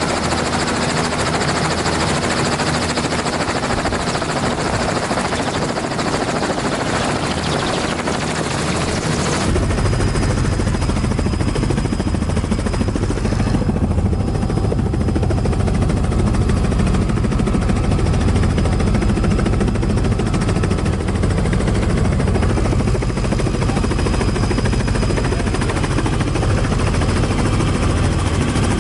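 Helicopter in flight heard from inside an open-sided cabin: a steady loud rotor and engine drone mixed with rushing wind. About a third of the way in the sound changes suddenly from a mostly hissing wind rush to a deeper rotor thrum.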